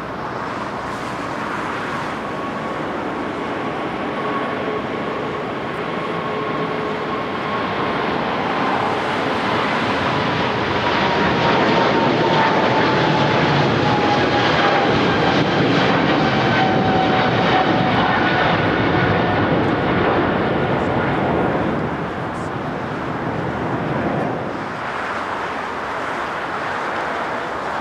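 MSC Air Cargo Boeing 777 freighter taking off, its twin jet engines at takeoff thrust: a jet roar that builds as the plane rolls and climbs away, with an engine whine slowly falling in pitch as it passes. The roar falls away near the end.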